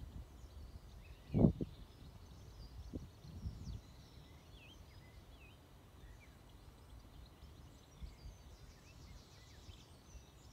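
Small songbirds chirping and calling in the trees over a low wind rumble on the microphone, with a short trill near the end. A single low thump about a second and a half in is the loudest sound.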